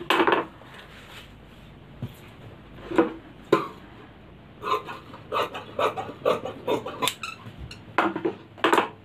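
Tailor's scissors snipping through cotton cloth to cut a one-inch bias strip: a few separate crisp snips, then a quick run of about three snips a second in the middle. The cut cloth strips are handled near the end.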